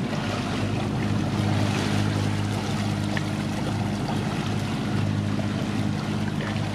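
A sailing yacht's engine running steadily as the boat motors along, an even low hum, with water rushing past the hull.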